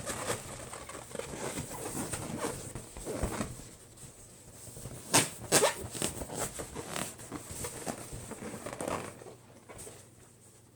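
Latex party balloons being handled and popped: a run of small knocks and rubbing sounds, with two sharp pops a moment apart about five seconds in.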